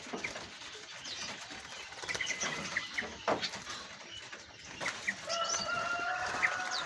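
Many caged songbirds chirping and fluttering, with short high calls and sharp clicks throughout and a steady held note from about five seconds in.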